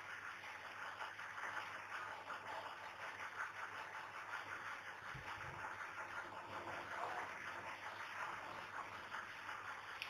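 Faint scratching strokes of a marker pen drawing lines on a whiteboard, over a steady low hiss.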